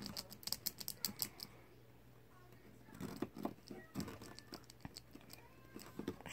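Small metal combination padlock being wiggled and handled, giving a quick run of light clicks and rattles at first, then a few scattered clicks, as its jammed mechanism refuses to open.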